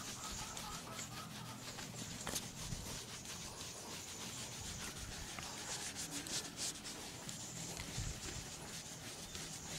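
Scratch-remover compound being rubbed by hand into a car's scratched paintwork with a small applicator pad: quick, steady back-and-forth scrubbing strokes, done to polish out the scratches.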